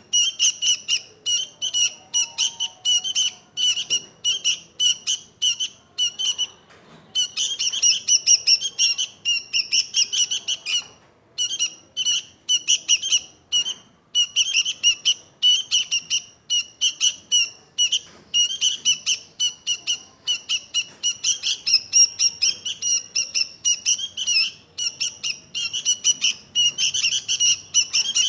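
Sooty-headed bulbul (kutilang) chirping in rapid runs of short, high repeated notes, several a second, broken by brief pauses.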